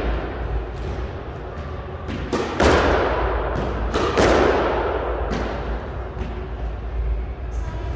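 A squash ball being struck by a racket and smacking against the walls of a squash court, several sharp hits that ring with the court's echo. The loudest come about two and a half and four seconds in.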